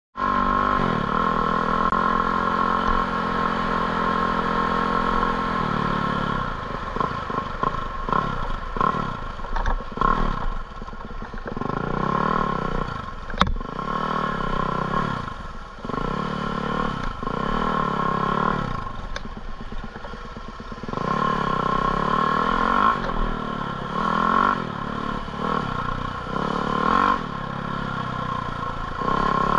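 An engine running at a steady speed for about six seconds, then revving up and down over and over, its pitch rising and falling every second or two.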